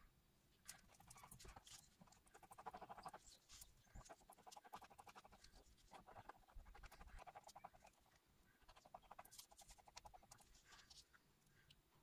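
Faint scraping and squelching of a small stick stirring thick black paint on masking tape, in four or so bursts of rapid strokes with short pauses between them.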